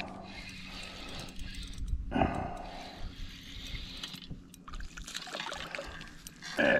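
Water splashing and sloshing beside a kayak as a hooked fish is reeled in and thrashes at the surface, uneven, with louder moments about two seconds in and near the end.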